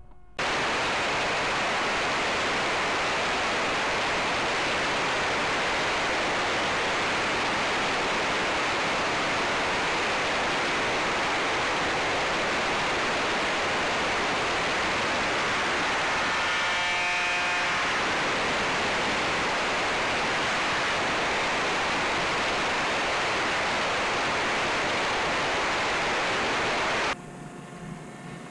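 Steady loud hiss of static, the audio of the analog FPV video link's recording, starting and cutting off abruptly, with a faint brief cluster of steady tones about two-thirds of the way through.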